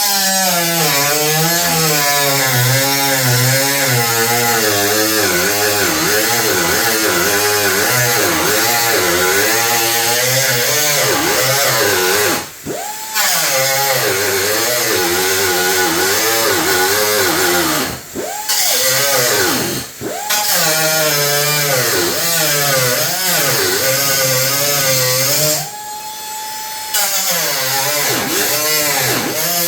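Small cut-off tool slicing along the sheet-metal seam between the patch panel and the hood to widen the gap for welding. Its whine wavers and sags as the wheel bites, rises back to a steady higher pitch when it runs free, and stops briefly several times.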